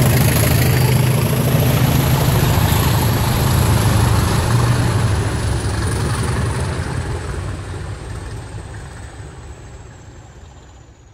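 Diesel locomotive hauling a train away: the engine's deep hum and a high whistle fade steadily as it recedes, and the whistle slides slowly down in pitch.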